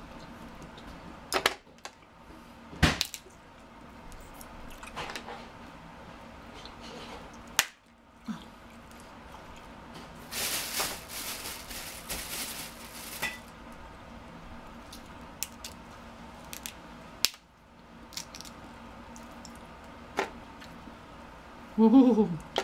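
King crab legs being snapped and cracked apart by hand, with sharp shell cracks and clicks now and then and a stretch of crackling shell about ten seconds in. A brief hum of a voice comes near the end.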